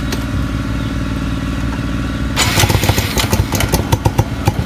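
Suzuki Smash 115's single-cylinder four-stroke engine running through a replica AUN aftermarket pipe with its silencer fitted: steady idle at first, then from about two and a half seconds in louder and rougher, in rapid uneven exhaust pulses as the throttle is worked.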